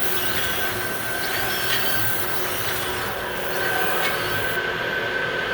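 Electrovert Vectra ES wave solder machine running with its spray fluxer atomizing: a steady hiss and hum with a thin, high whine throughout.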